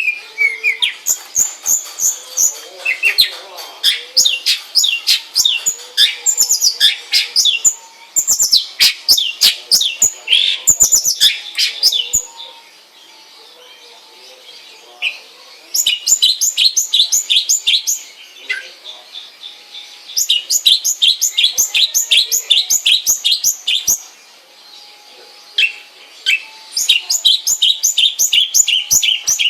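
Long-tailed shrike (cendet) singing: fast runs of sharp, high chirps in bursts of several seconds, broken by a few short pauses.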